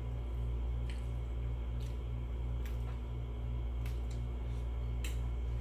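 A steady low hum with a faint regular pulse, under a few short clicks of eating and utensils, about one a second.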